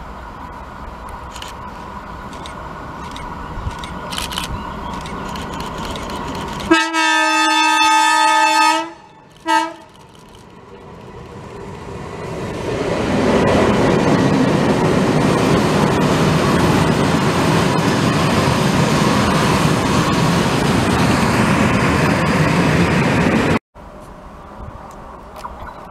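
Locomotive hauling a train of wagons approaching and running past close by: a rumble that grows, one long horn blast about seven seconds in and a short second toot, then the loud, steady noise of the locomotive and wagons going by, which cuts off suddenly near the end.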